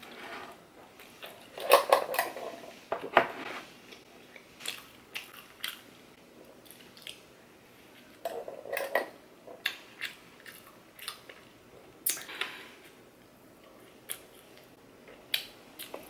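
A person chewing and biting fast food close to the microphone, with irregular wet smacks and crunches, the loudest a couple of seconds in, about three seconds in, and again around nine and twelve seconds.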